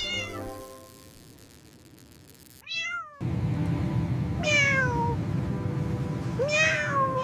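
A cat meowing: a short call about two and a half seconds in, then two longer meows that fall in pitch, over background music that starts about three seconds in.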